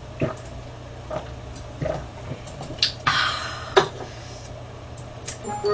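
A person gulping a drink from a can, swallowing roughly once a second. Then comes a breathy exhale about three seconds in, and a single sharp knock as the can is set down.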